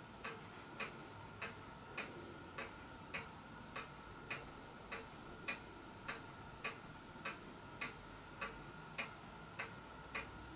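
Steady, even ticking, just under two ticks a second, over a faint steady high hum.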